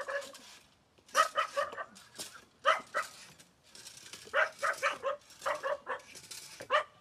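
A dog barking repeatedly, in several quick runs of short barks with brief pauses between them.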